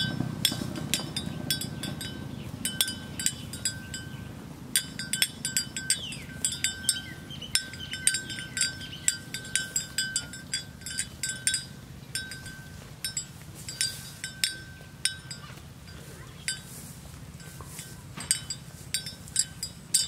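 Bell worn by a grazing water buffalo clinking irregularly as the animal moves its head, in quick clusters of bright ringing strikes, over a faint low rumble.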